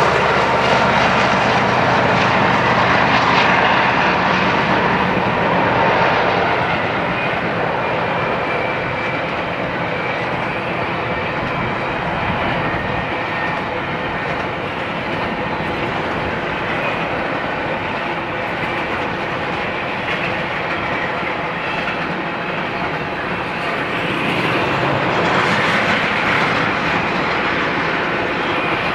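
Freight train passing close by: the BNSF diesel locomotives go by during the first several seconds with their engines running, then the double-stack container cars roll past with a steady noise of wheels on rail, swelling again near the end.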